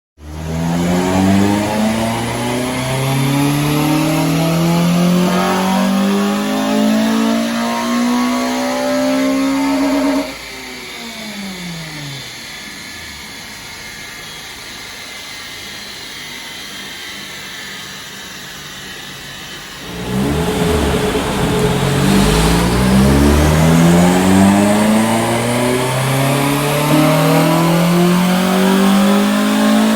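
Honda Civic FN2 Type R's 2.0-litre four-cylinder i-VTEC engine making full-throttle pulls on a rolling road dyno, revs climbing steadily for about ten seconds. Then the throttle closes and the revs fall away to a quieter run-down, and about halfway through a second full-throttle pull starts and climbs again to the end.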